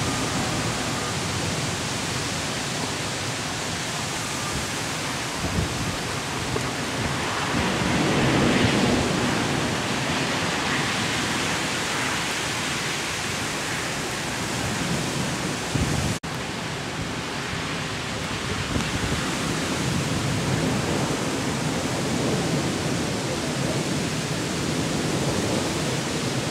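Thunderstorm: a steady rushing noise of heavy rain and storm wind, with a low rumble of thunder swelling about eight seconds in. The sound drops out for an instant about sixteen seconds in.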